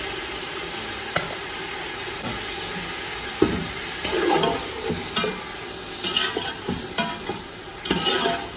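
Minced meat sizzling in hot oil in a steel pot with browned onions and tomatoes, with a metal slotted spoon knocking and scraping against the pot as it is stirred in. The stirring clatter gets busier in the last few seconds.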